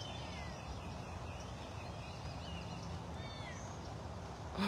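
Faint chirping birdsong over a steady low background rumble. Near the end a serval gives a short, louder call, the first of the calls that are heard as the cats are waiting on breakfast.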